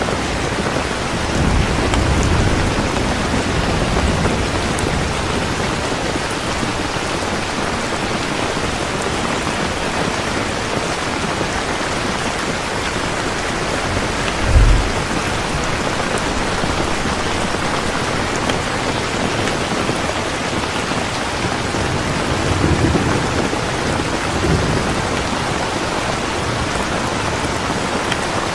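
Heavy rain falling steadily, with low rolling thunder near the start and again near the end. About halfway through comes one short, louder low thud of thunder.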